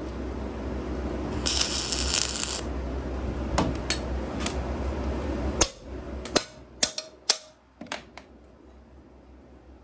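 Wire-feed welding arc running with a steady hiss and low hum for about five and a half seconds, then cutting off suddenly. A steel hammer then strikes the welded steel about six times, sharp metallic taps over roughly three seconds.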